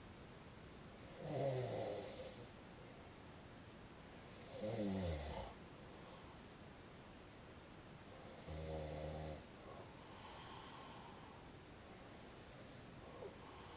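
A man snoring in his sleep, one snore roughly every three to four seconds. The second snore drops in pitch and the third is a steady buzzing tone. Weaker breaths follow near the end.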